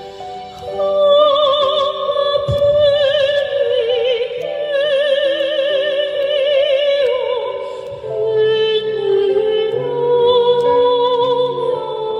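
A female soprano voice singing with wide, even vibrato in an operatic style, accompanied by held chords on an electric keyboard.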